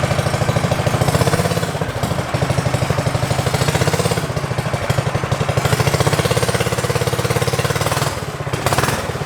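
An engine running with a fast, even chugging pulse.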